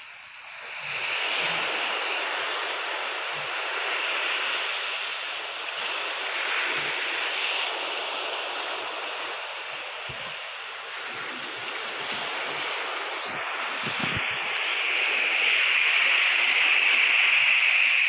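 Ocean surf: a steady rushing wash of waves that swells and eases, growing louder near the end.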